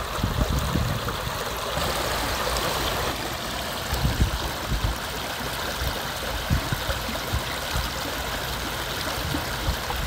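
Running water from a shallow mountain stream: a steady, even rushing and trickling, with a few soft low bumps around the middle.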